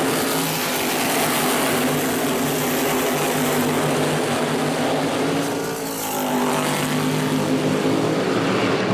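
A pack of race cars running at speed on a short oval, several engines at once. Their pitches shift as the cars pass, with a brief drop in level about six seconds in.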